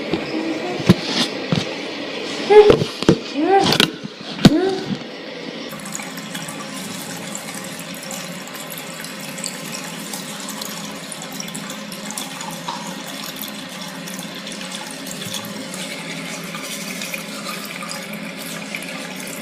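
A few knocks and clatters, then a tap starts running into a sink about six seconds in and keeps running steadily.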